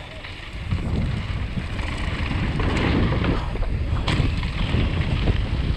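Wind buffeting an action camera's microphone on a fast mountain-bike descent, with the Canyon Torque full-suspension bike's tyres rumbling over a dirt and gravel trail; the rumble picks up just under a second in, and a sharp knock from the bike comes about four seconds in.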